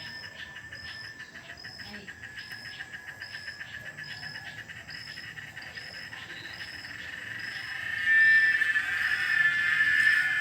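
Cicada singing: a high, rapidly pulsing buzz that builds and about eight seconds in swells suddenly much louder into a continuous shrill drone.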